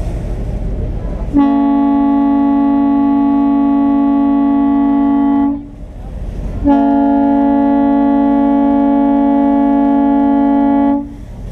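Ferry boat's horn sounding two long, steady blasts of about four seconds each, with a short gap between them. Wind on the microphone and water noise from the moving boat lie under and around the blasts.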